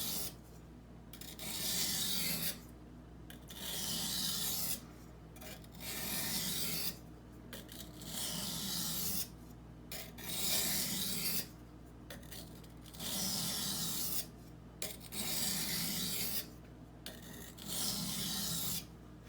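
Steel knife blade stroked across a wet Norton water stone, a gritty rasp about once every two seconds with short pauses between, alternating sides to break off the burr.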